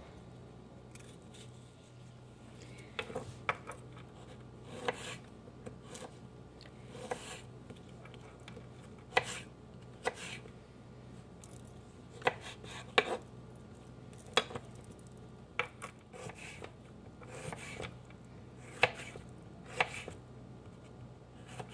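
Knife slicing a peeled pear on a wooden cutting board: irregular sharp knocks of the blade going through the fruit onto the board, beginning a few seconds in.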